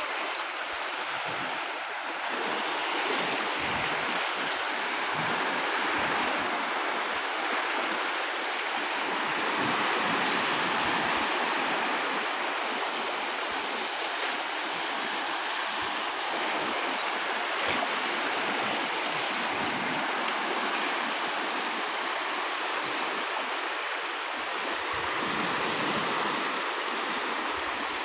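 Small waves breaking and washing over a pebble shore: a steady rush of surf that swells and eases gently.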